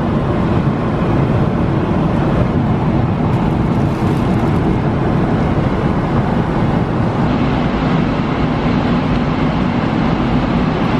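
Steady in-flight cabin noise of a Boeing 777-300ER at cruise: an even, loud rush of airflow and engine noise.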